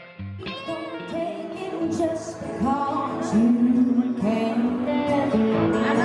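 A band playing a song: a woman singing long, gliding notes over guitars. The music breaks briefly just after the start and comes back in, growing louder.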